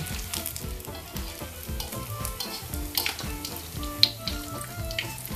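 Hot oil sizzling in a wok as freshly fried potato-dough sticks are scooped out and drained in a perforated metal skimmer, with a few sharp clinks of the metal utensils against the wok, the loudest about four seconds in. Background music plays underneath.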